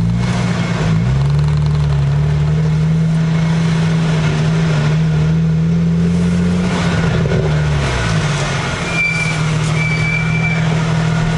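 BMW 335i's twin-turbo N54 straight-six through an Eisenmann race exhaust, heard from inside the cabin, droning at low revs while the car creeps along. The engine note dips and comes back up about a second in, holds steady, then falls to a lower pitch about seven seconds in.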